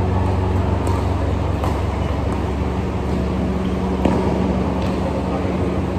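Badminton rackets striking a shuttlecock during a rally: short sharp hits about once a second, the loudest about four seconds in. A steady low machine hum fills the large hall underneath.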